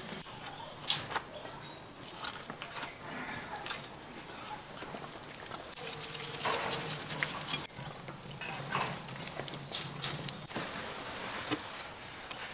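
Scattered light clicks and knocks: a metal click from the clamp of a cast-iron kazan's lid near the start, then raw camel meat being turned over by hand in an enamel bowl, with soft wet slaps and taps.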